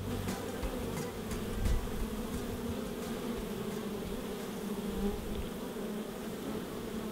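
Many honeybees buzzing at a hive entrance, a steady hum.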